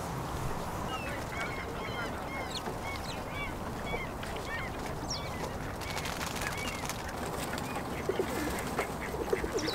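Birds calling: a long run of short, quick chirps repeating over a steady background noise.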